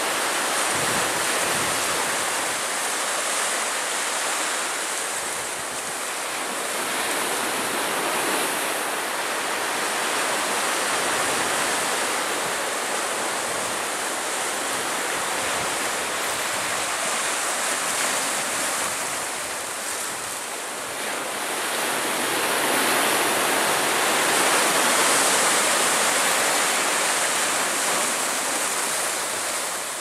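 Ocean surf breaking and washing up the shore, a steady rush of water that swells louder about two-thirds of the way through.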